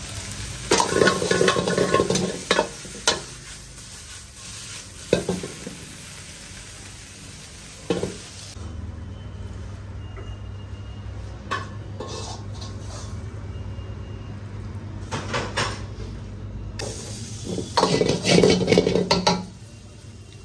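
A metal ladle stirring and scraping in a wok while food sizzles, with clattering strokes in spells, loudest near the start and again near the end. A steady low hum runs underneath.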